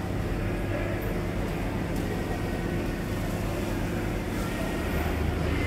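Steady low hum of running machinery, growing a little louder near the end.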